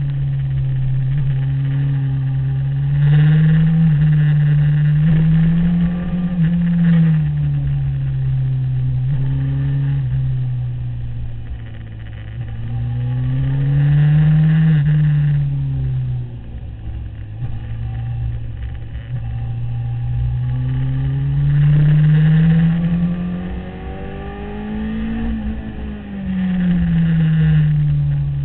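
Sport motorcycle engine heard from the rider's seat, its pitch climbing under acceleration and dropping on braking and downshifts, several times over, with wind buffeting the microphone.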